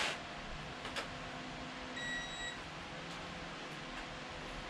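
Digital torque wrench giving one high beep, about half a second long, about two seconds in: the signal that the set torque has been reached on a connecting-rod bolt. Two faint clicks come before it.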